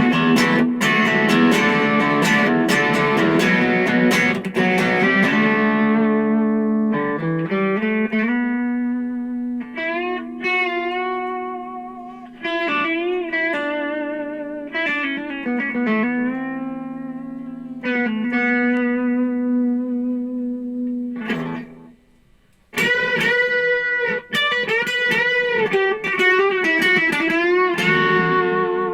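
Electric guitar played through a Boss Katana Mini amp on its crunch channel with a shortened delay: strummed chords first, then single-note lines with bends and vibrato. The playing pauses briefly about three-quarters of the way through, then picks up again.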